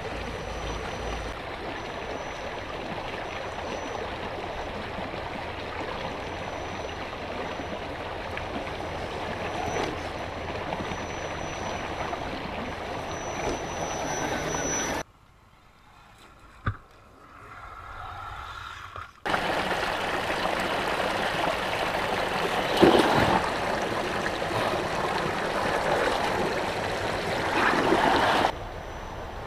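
Shallow rocky river rushing steadily over stones, a constant water hiss that drops to a faint hush for a few seconds midway, then returns louder with a couple of swells.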